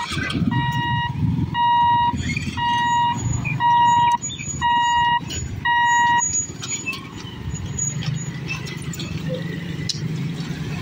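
An electronic warning beeper sounds six even beeps, about one a second, stopping about six seconds in. A steady low rumble of vehicle engines runs underneath.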